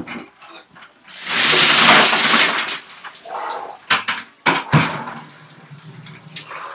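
A bucket of ice water poured over a person in a tiled shower stall: a loud splash and rush of water about a second in, then a few sharp knocks of ice and bucket against the tiles.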